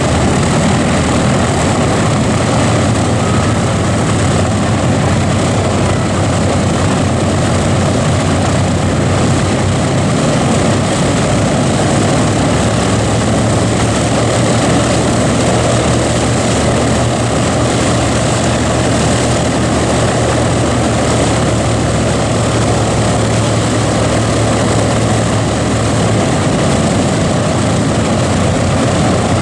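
Four Wright R-3350 radial engines of a Boeing B-29 Superfortress running with propellers turning, a loud, steady drone. Its low hum shifts slightly about ten seconds in and eases a little near the end.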